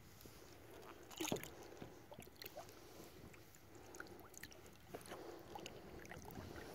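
Faint water sounds around a kayak: small splashes and drips with scattered light ticks, and one louder splash or knock about a second in.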